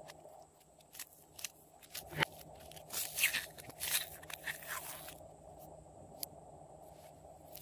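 Hands handling a plastic toy container: a few light clicks, then crackly crunching for about two seconds, and one more click near the end.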